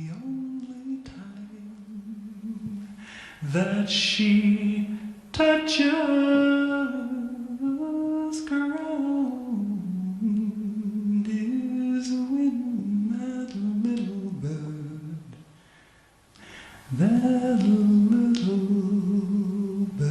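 Recorded song: a woman's voice humming and singing without words, long held notes gliding from one pitch to the next. It fades almost to nothing about three-quarters of the way through, then comes back strongly. A couple of short, sharp knocks sound early on top of it.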